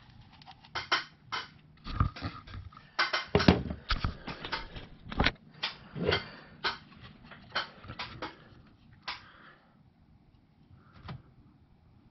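Handling noise: a string of irregular clicks, knocks and rubbing as the camera is moved and a 3D-printed plastic funnel is picked up, thinning out after about nine seconds.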